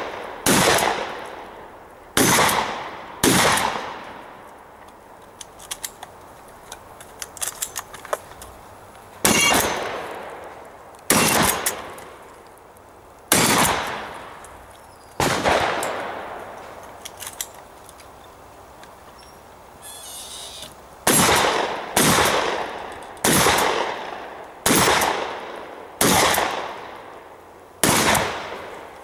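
Shotgun shots fired one at a time, about a dozen in all, each loud crack followed by a fading echo. Three shots come in the first few seconds, then a lull with light clicks, then four shots spaced about two seconds apart, then a faster run of six near the end.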